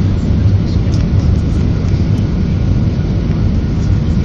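Airbus A320 cabin noise on approach to landing: the steady low rumble of the jet engines and the rush of air past the fuselage, heard from inside the cabin.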